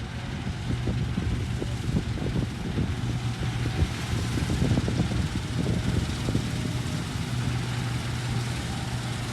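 Engine of harvesting machinery running steadily with a low hum, with irregular knocking and clatter through the middle.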